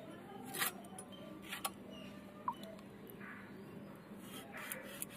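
Skin of a raw green plantain being shaved off against the blade of a bonti: a few short scraping cuts, a second or more apart, with a quick cluster near the end.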